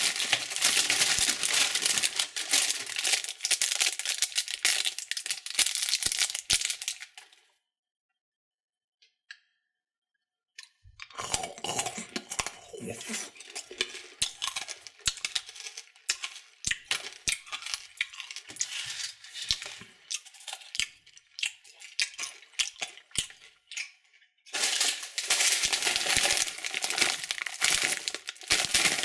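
Plastic candy wrappers crinkling and tearing as they are handled. About seven seconds in the sound drops out for a few seconds. It comes back as sparser crackles and clicks, and dense crinkling returns near the end.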